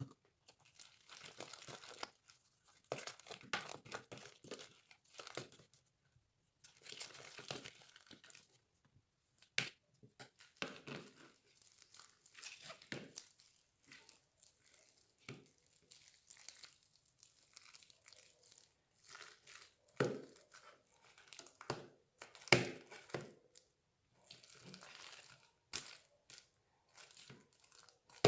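Slime being squeezed, stretched and pulled apart by hand, making irregular bursts of sticky crackling and rustling with a few sharper pops.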